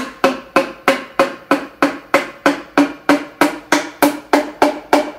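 Light, evenly spaced taps, about three a second, of a mallet's handle end on a piston crown, driving the piston through a ring compressor into a cylinder bore of a 3.4-litre Jaguar engine block. Each tap gives a short metallic ring.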